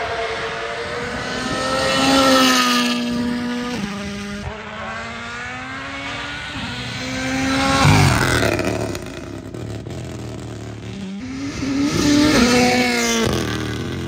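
Toyota GR Yaris Rally1 rally car's turbocharged three-cylinder engine revving hard and climbing through the gears, its pitch rising and then dropping at each shift. It swells as the car comes close and passes, loudest about eight seconds in, then rises again near the end.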